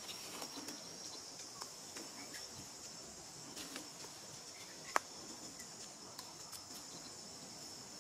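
Steady high-pitched drone of insects in the forest undergrowth, with scattered faint clicks and one sharp click about five seconds in.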